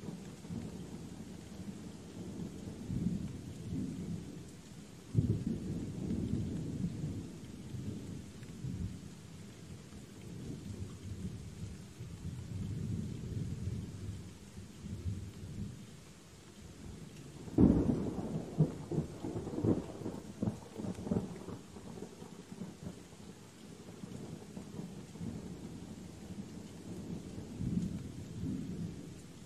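Thunderstorm: steady rain with rolling thunder. Low rumbles run throughout, with a sudden thunderclap about five seconds in and a louder, crackling one a little past halfway, each rolling on for several seconds.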